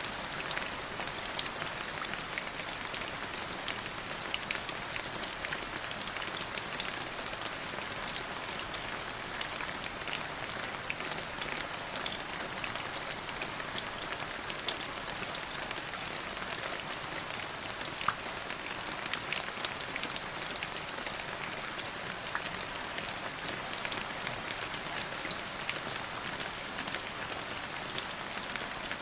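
Steady rain falling on a hard surface, a constant hiss with many distinct drop impacts.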